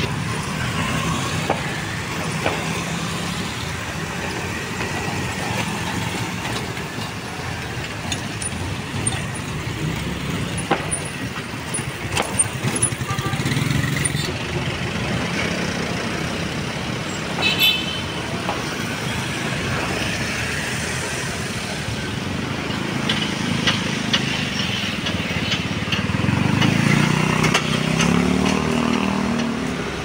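Street traffic: motor vehicles running past, with a small truck's engine close by at the start and another engine growing louder near the end.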